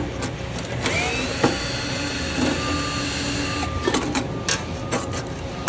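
Cordless drill/driver spinning up and running steadily for about three seconds, driving out a screw of the pump's top mounting bracket, then stopping. A few sharp clicks and knocks follow.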